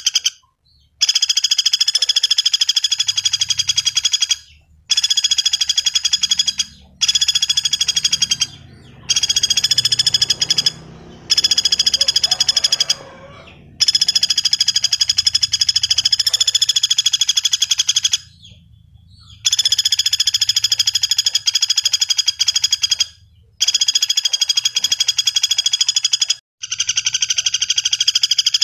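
Pelatuk bawang woodpecker giving a long, rapid rattling trill, repeated in bouts of a few seconds with short gaps between them.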